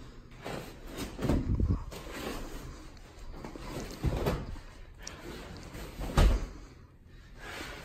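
Deflated Beautyrest air mattress being unfolded and flapped out flat: crinkly rustling of the mattress material with several dull thumps, the loudest about six seconds in.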